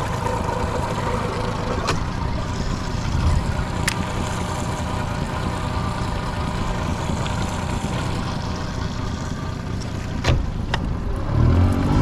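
Honda 30 hp four-stroke tiller outboard motor running steadily at low trolling speed, with a few sharp clicks. Near the end it is throttled up and rises in pitch and loudness.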